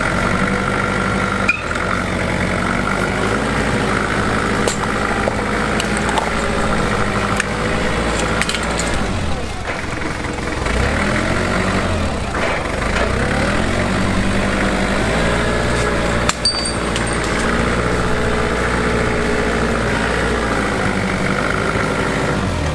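Forklift engine running steadily, its pitch rising and falling as it is throttled while the forklift rolls over airsoft gun parts. A few sharp cracks and clicks stand out, the clearest about sixteen seconds in, as the parts break under the wheels.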